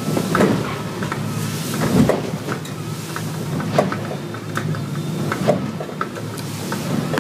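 Heard from inside the cabin of a 9 m Cheetah catamaran pounding through short, steep chop: a steady engine drone under repeated knocks and rattles as the hull slams into the waves, the loudest about two seconds in, over a hiss of wind and spray.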